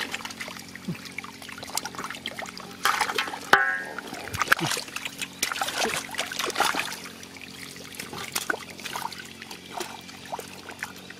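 Hands splashing and groping in shallow muddy water as catfish thrash in it, with water trickling. The splashes come in irregular bouts, busiest around the middle.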